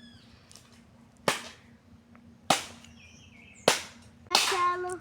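Regular chopping blows on wood, about one every second and a quarter, as a log is cut by hand.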